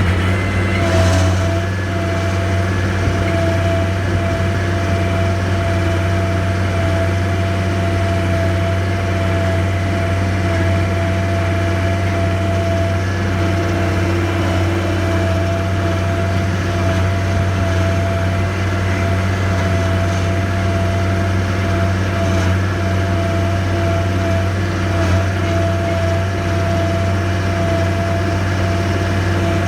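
Skid steer engine running steadily at constant speed, with a thin steady whine over the low drone from about a second in.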